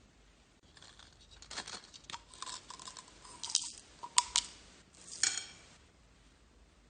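Slime being squeezed and pressed by hand, giving a string of crunchy crackles and sharp pops with a brief squeak in between.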